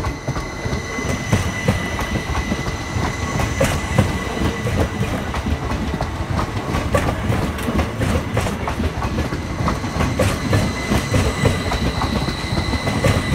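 Northern passenger train passing close by: wheels rumbling and clattering over rail joints and pointwork, with a thin steady high-pitched whine held over it.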